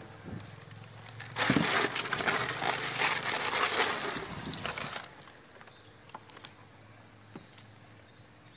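A plastic bag crinkling, with water sloshing inside it, loud and crackly for about three and a half seconds starting just over a second in. After that only faint background remains.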